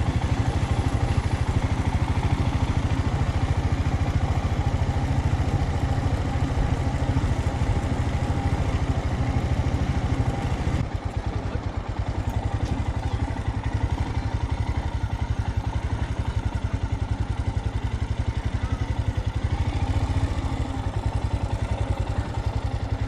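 Royal Enfield Himalayan's single-cylinder engine running steadily as the motorcycle rides along, its firing pulses even; the sound drops in level about halfway through.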